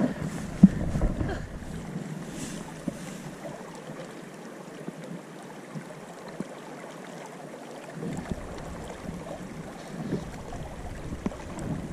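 River water rushing past, with wind rumbling on the microphone in gusts at the start and again near the end. A single sharp knock under a second in.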